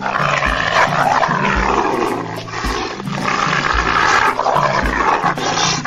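A wolf snarling and growling as it lunges at a person, over background music with a low beat about once a second.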